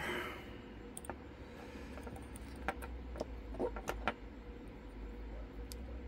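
Faint, irregular metallic clicks and ticks of a lock pick working the pins inside an ABS Avocet euro-cylinder lock, about a dozen in all and bunched in the middle, over a faint steady hum.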